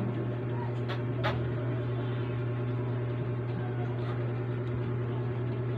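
A steady machine hum, like a motor or appliance running, with two short clicks about a second in.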